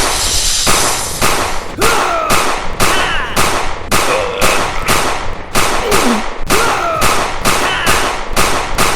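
A rapid, even run of sharp cracks or bangs, about two to three a second, each fading quickly, with high squeaky cartoon-like vocal squeals gliding up and down over them.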